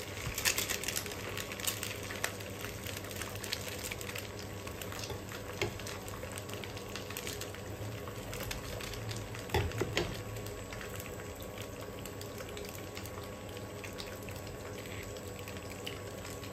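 Egg frying in hot oil in a nonstick pan, a steady sizzle with scattered small crackles. A couple of light knocks come about ten seconds in.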